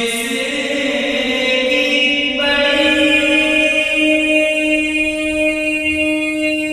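A solo young male voice singing a naat, an Urdu devotional song, a cappella through a microphone. Long drawn-out notes that step up in pitch twice, then one note held steady for the last few seconds.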